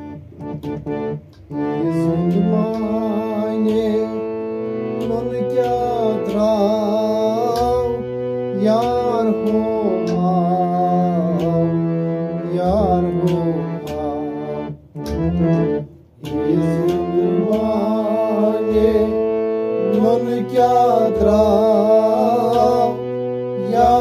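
Harmonium playing a melody over held drone notes, accompanied by a clay pot drum struck in a regular beat. A man sings a Kashmiri song over it from about five seconds in, with a brief pause a little past the middle.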